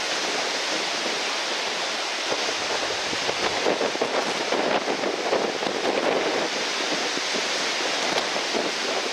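Breaking surf and strong gale wind: a steady rushing noise that swells and eases every second or two.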